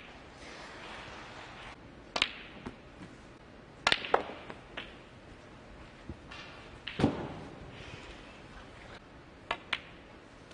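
Snooker balls clicking during a break: about six sharp, separate clicks, some in quick pairs, as the cue tip strikes the cue ball and the cue ball hits the object balls.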